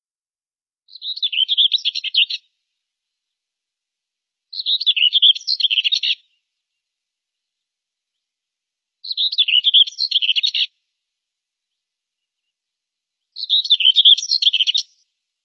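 Common whitethroat (Sylvia communis) singing: four short, rapid warbling song phrases, each about a second and a half long, a few seconds apart.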